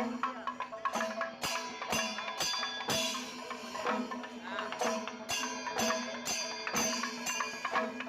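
Music with percussion: drum strokes about twice a second over steady sustained tones.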